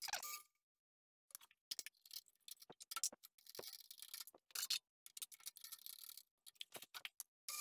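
Faint, irregular clicks, clinks and short scrapes of metal tooling being handled at a milling machine, as the end mill comes out of the spindle and a face mill is picked up.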